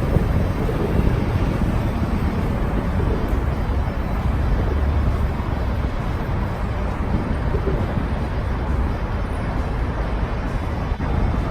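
Wind rumbling and buffeting on the microphone outdoors: a steady, rough low noise with no distinct events.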